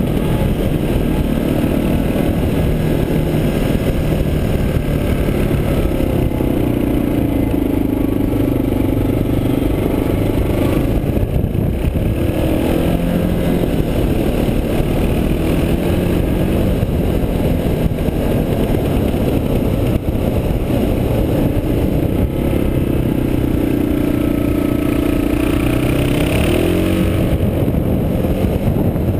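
Suzuki DR650's single-cylinder four-stroke engine pulling the bike along at road speed, its pitch climbing twice as the throttle opens, about a quarter of the way in and again near the end. A steady rush of wind and road noise runs under it.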